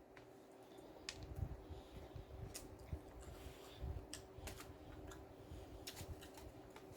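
Faint eating sounds: scattered small crisp clicks and soft low thumps at irregular moments, over a faint steady hum.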